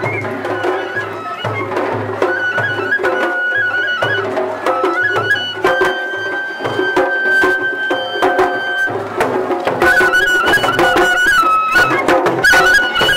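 Japanese festival hayashi music: a bamboo flute plays a high, ornamented melody over steady low drum beats about twice a second. About ten seconds in it grows louder, with rapid sharp percussive strikes joining in.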